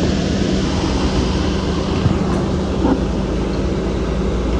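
Heavy diesel engine of construction machinery running steadily, a constant hum over a low rumble, with a couple of light knocks about two and three seconds in.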